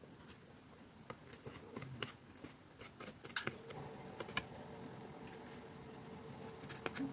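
Faint, scattered clicks and rustles of cardstock handled and pressed between the fingers as glued tabs are stuck down.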